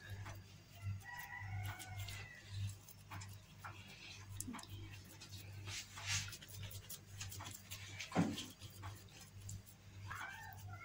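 Soft handling of cookie dough logs on a silicone baking mat, with a few light taps, over a steady low electrical hum. A faint drawn-out bird call sounds in the background about a second in, and a shorter one near the end.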